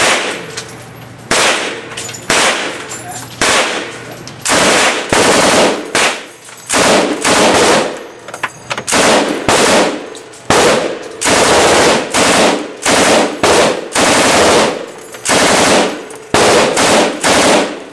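M249 SAW 5.56 mm light machine gun firing a long string of short bursts of automatic fire, roughly one burst a second, with brief pauses between them.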